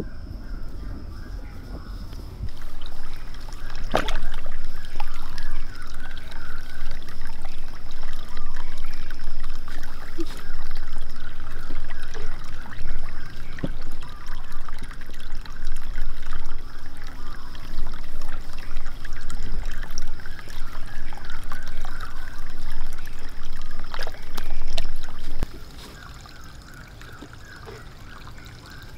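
Water trickling and pouring from a clay pot fountain into a pond, with a bubbly splashing. It grows louder a couple of seconds in and drops off sharply near the end.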